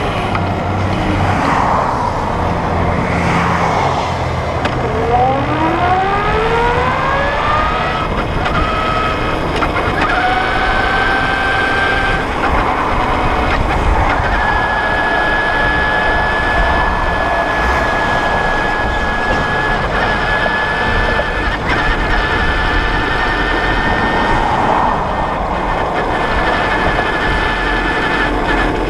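Brammo Empulse R electric motorcycle's drive motor whining over steady wind and road rush at freeway speed. The whine climbs in pitch several seconds in, breaks off and picks up again twice, then settles into a steady high whine.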